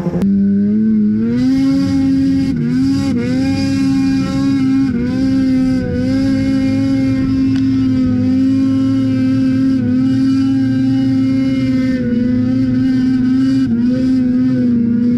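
Ski-Doo 600 RS snowmobile's two-stroke engine held at high revs while skipping across open water. The revs climb in the first second, then stay steady with brief dips about 3 and 6 seconds in, and a rushing hiss runs over the engine.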